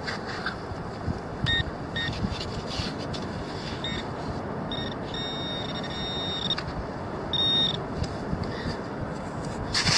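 Garrett Pro Pointer AT pinpointer beeping at one fixed high pitch: a few short beeps, then rapid pulsing for about two seconds near the middle and one more beep, as it sounds on a target in the dug sand. Scraping of hands digging through sand underneath.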